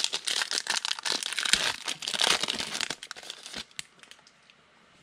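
Foil wrapper of a 2018 Donruss football card pack crinkling and tearing as it is ripped open by hand. The crinkling stops about three seconds in, followed by a few light ticks.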